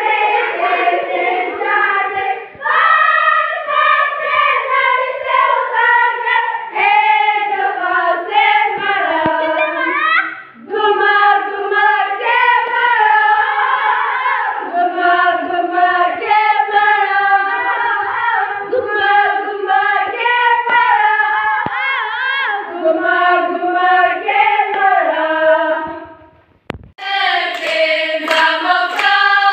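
A group of young women singing a worship song together without instruments, clapping along. The singing cuts out briefly near the end, then comes back.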